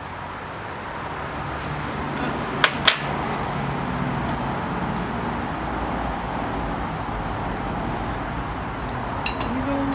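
Steady traffic noise that swells a little after the first second, with two sharp clinks of kitchenware close together about three seconds in and another ringing clink near the end.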